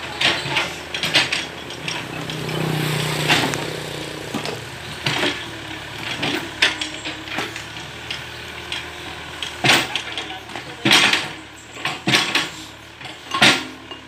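Sumitomo hydraulic excavator's diesel engine running, swelling briefly a couple of seconds in, with frequent sharp clinks and knocks of stone and brick, several loud knocks in the second half.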